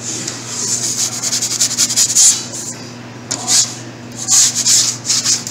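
Scraping and rubbing as a pizza is worked on a metal pizza peel on a marble counter, in irregular bursts with a run of quick strokes early and louder scrapes near the middle and end. A steady low hum runs underneath.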